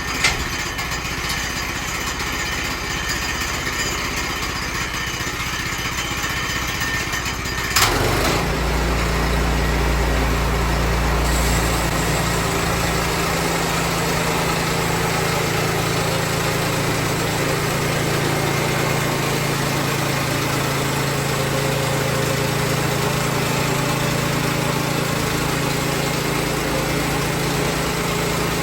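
Gas engine of a Woodland Mills HM122 portable bandsaw mill running steadily. About eight seconds in there is a sharp click, after which it runs louder with a heavier, lower note.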